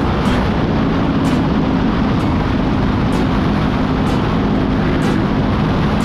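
Honda Rebel 500's parallel-twin engine running steadily at highway cruising speed, under a heavy rush of wind and road noise.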